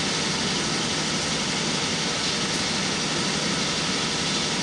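Steady hum and hiss of warehouse background noise, even throughout with no distinct knocks or clicks.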